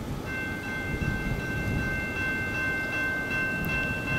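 A freight locomotive's multi-chime air horn sounds one long, steady chord, starting a fraction of a second in and holding, over the low rumble of the approaching train.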